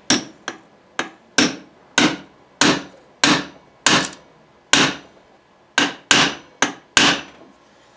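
Small hammer tapping the gas block pin back into an AR-15 gas block. About a dozen sharp metallic taps, roughly two a second, some lighter than others, each with a short ring.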